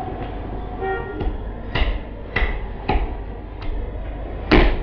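Heavy meat cleaver chopping through pork rib bone onto a thick wooden chopping block, cutting surplus bone off the slab. About five chops, roughly one every two-thirds of a second, starting near two seconds in; the last is the loudest.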